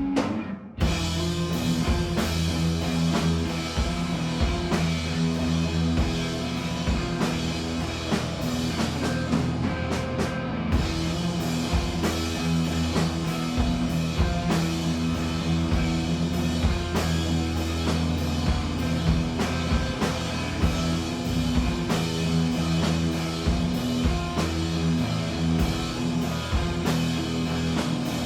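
Punk rock band playing live through the club PA: a held, distorted guitar note breaks off and, under a second in, the full band crashes in with drum kit, distorted electric guitar and bass, driving on steadily.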